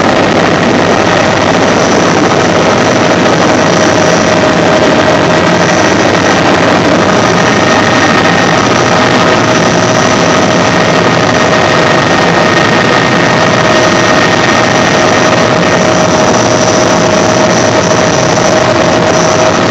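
Bell 206 JetRanger III's Allison 250 turboshaft running steadily, heard inside the cockpit: a high turbine whine of several steady tones over a loud, even rush of engine and rotor.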